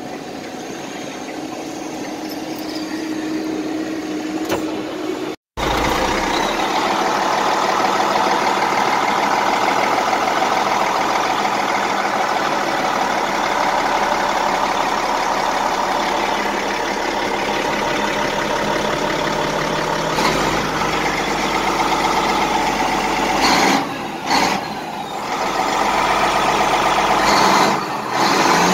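CAT D8 bulldozer's diesel engine running, heard from inside the cab. It is quieter and slowly building for the first few seconds, cuts out in a brief silent gap about five and a half seconds in, then runs loud and steady, with a couple of short dips in level near the end.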